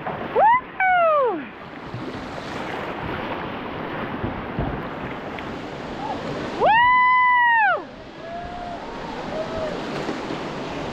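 Steady rush of river water, broken by high-pitched whoops from kayakers: a short rising-and-falling one near the start and a longer held one about six and a half seconds in, with a few fainter calls after it.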